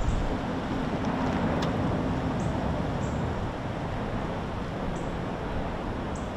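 Steady, deep rushing rumble of the Fissure 8 lava fountain on Kīlauea, as lava jets up inside its spatter cone.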